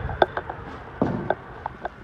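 Loose debris and trash being shifted on a hard floor: scattered light clicks and knocks, with a duller scraping knock about a second in.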